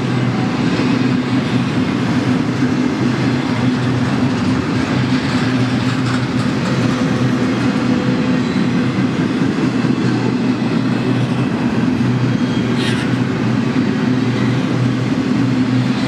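Double-stack intermodal freight train's well cars rolling past, a steady rumble of steel wheels on the rails.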